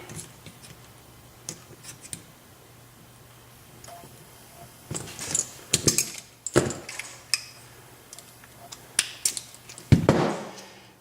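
Small metal clicks and scrapes of a tool prying at the circlip on a euro profile lock cylinder, in irregular bursts. The loudest scrape comes about ten seconds in, as the clip comes free.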